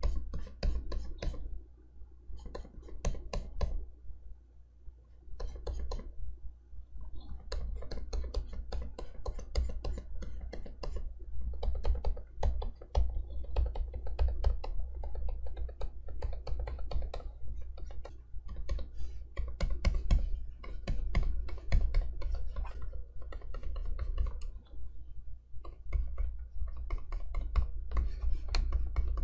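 Stylus nib tapping and scratching across the screen of an XP-Pen Artist 15.6 Pro pen display while sketching. It comes in quick clusters of clicks and short strokes, with a quieter pause about four to six seconds in, over a steady low hum.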